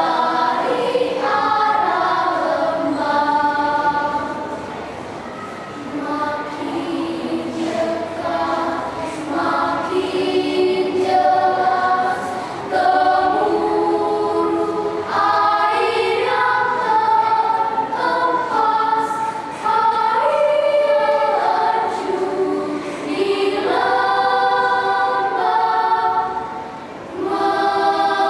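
Children's choir singing in long held phrases, with the sound easing briefly about six seconds in and again near the end.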